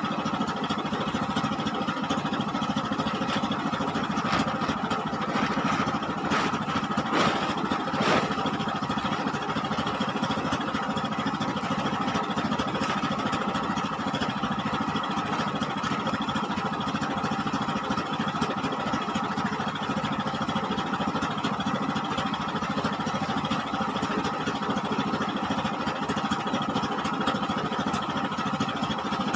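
Steady drone of an engine running aboard a lift-net fishing boat, unchanging throughout. A few short knocks sound between about four and eight seconds in.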